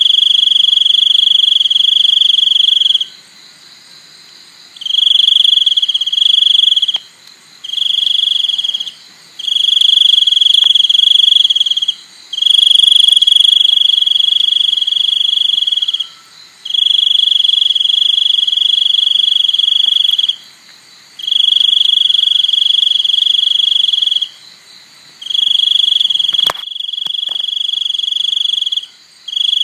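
Cricket song: a loud, high steady trill sounding in long bursts of one to four seconds with short breaks between them. There is a single sharp click near the end.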